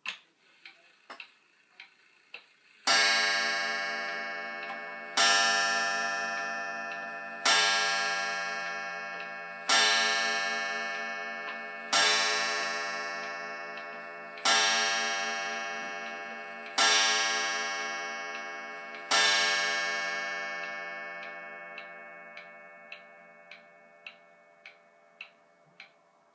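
Vintage eight-day wind-up wall clock striking the hour: eight loud, ringing strokes about two seconds apart, each dying away slowly. Its loud tick runs on underneath, heard plainly before the first stroke and as the last one fades.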